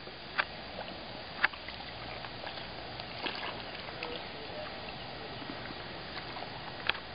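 Pond ambience: a steady hiss with a few small sharp clicks scattered through it, the loudest about a second and a half in and another just before the end.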